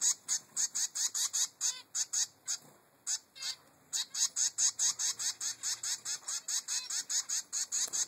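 Three-week-old zebra finch fledgling giving rapid, repeated begging calls, about five a second, to demand food from its parent. The calls pause briefly about three seconds in, then resume.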